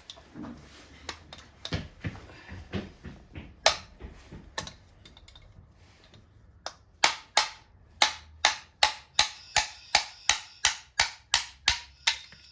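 Hammer blows knocking a piston out of a small outboard motor's cylinder block. A few scattered knocks and clicks come first, then about seven seconds in a steady run of sharp strikes, about three a second.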